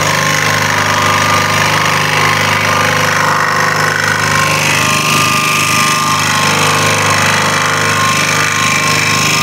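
Scroll saw running steadily, its fine blade rapidly reciprocating as it cuts a tight curve through a wooden board.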